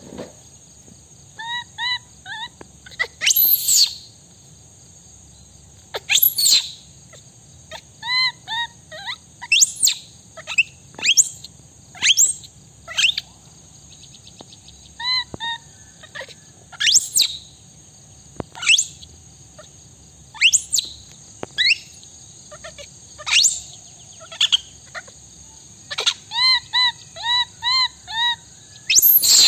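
Baby macaque crying: short, high-pitched pitched cries in quick runs of three to five, mixed with sharp shrill squeals, coming again and again with short pauses between.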